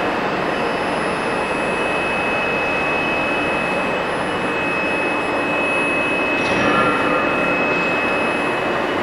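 CNC lathe running with a superfinishing attachment on its tool post: an even machine noise with a steady high whine, which stops near the end.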